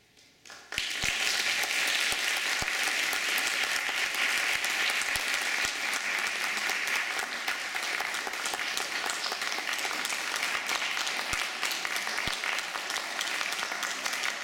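Audience applauding, starting sharply under a second in and keeping up as a dense, steady clapping.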